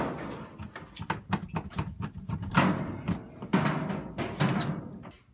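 Footsteps thudding and clothing and handling rustle from a hand-held camera carried on the move, with irregular knocks and several louder swells of rustle, the last few about a second apart.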